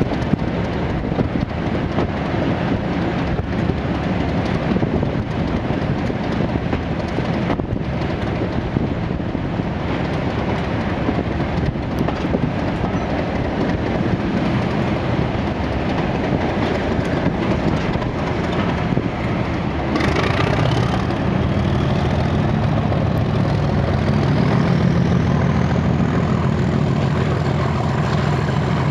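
Diesel locomotive engines of a Class 47 and a Class 37 working hard under load, with a dense, steady running sound. About twenty seconds in, the engine note deepens and a whine climbs steadily in pitch.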